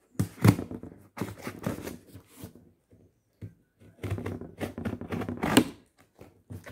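Scissors slicing through packing tape on a cardboard box, with the tape crackling and the cardboard rustling in two spells of quick scraping and tearing, the second beginning about four seconds in.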